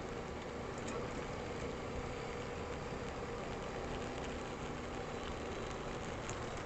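Honda ATV engine running steadily at low speed, heard faintly under a steady hiss, with a couple of faint ticks.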